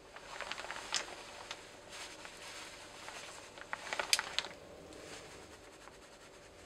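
Two flurries of rapid computer keyboard and mouse clicks over a soft hiss, the second and louder flurry about four seconds in.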